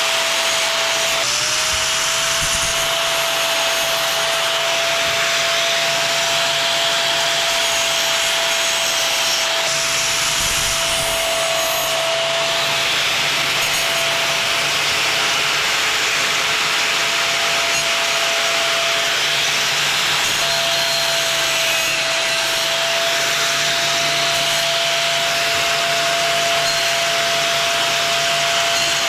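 Angle grinder running steadily while grinding steel plate, a continuous motor whine over a rough grinding noise; the whine sags in pitch about a second in and again around twenty seconds in, as the disc is pressed into the work.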